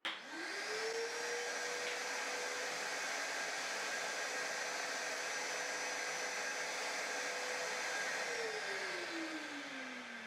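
Karcher WD3 1000-watt wet and dry vacuum cleaner switched on with a click, its motor whining up to speed within a second and then running steadily with a rushing air noise. About eight seconds in it is switched off and its whine falls in pitch as the motor winds down.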